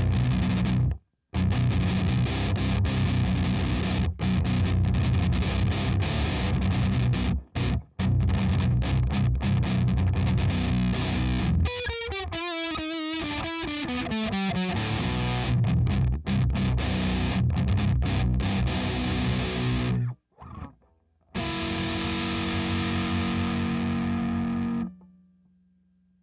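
Heavily distorted electric guitar playing a metal riff of chugging notes with sudden stops. About halfway through, the notes slide downward, and a held chord near the end is cut off.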